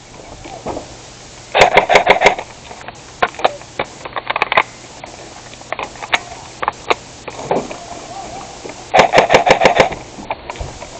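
Bursts of rapid fire from skirmish-game guns. A fast string of shots comes about a second and a half in, scattered single shots follow between three and four and a half seconds, and another fast burst, the loudest, comes at about nine seconds.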